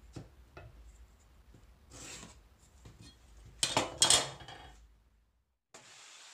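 A metal combination square and pencil handled on a pine board: light clicks, a short pencil scratch about two seconds in, then two loud clattering knocks past the middle as the tools are shifted and set down. A faint steady hiss follows near the end.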